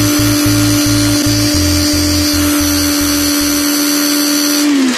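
Small electric power tool running at steady speed with an even whine, switched off near the end and winding down. Music with a rhythmic bass line plays underneath.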